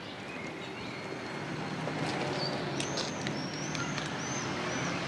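Outdoor ambience: birds chirping and whistling, with several short curved calls in the middle, over a steady background hiss.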